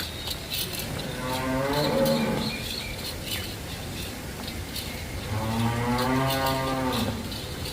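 Water buffalo mooing twice, two long low calls about three seconds apart, the second a little longer. Faint high clicks in the background.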